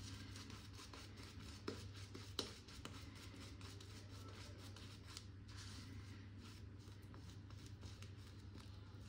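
Boti N3C shaving brush working lather over a stubbled face: a soft, scratchy rubbing of bristles in quick strokes, with two sharper ticks about two seconds in.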